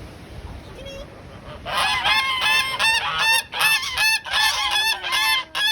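Flock of domestic geese honking loudly in answer to a call, many short overlapping honks starting about a second and a half in after a low hiss of wind.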